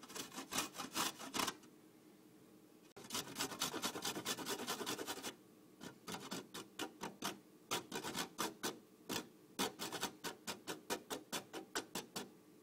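Buddha's hand citron being zested on a metal box grater: runs of quick rasping strokes, about three a second, with a brief pause about a second and a half in.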